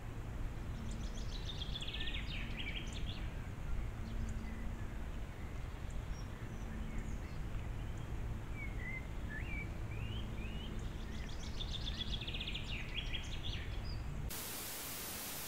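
A songbird sings a fast, trilled phrase that falls in pitch, twice (near the start and again near the end), with a few short chirps in between, over a steady low rumble of background noise.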